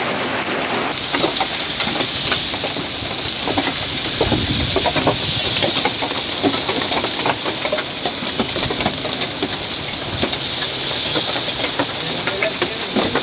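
Hailstorm: a steady downpour hiss with many sharp ticks of hailstones striking hard surfaces.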